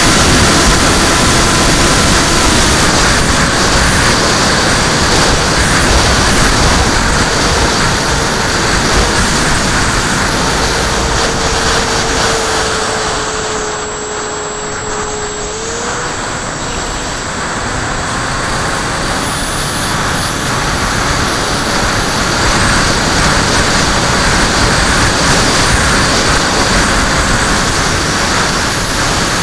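Wind rushing over the onboard camera of a HobbyKing SkyFun FPV flying wing in flight, with the thin whine of its electric motor shifting pitch as the throttle changes. About halfway the rush drops away for a few seconds while a single steady whine holds, then the wind noise builds again.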